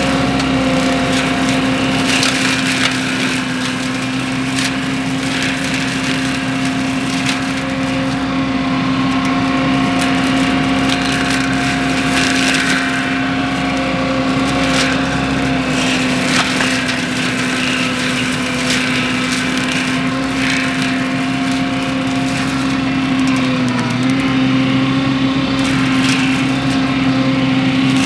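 Mini skid steer with a mulcher head running at steady high speed, a constant pitched whine, with frequent sharp cracks and snaps scattered through. The pitch sags briefly near the end, as if the machine takes a load.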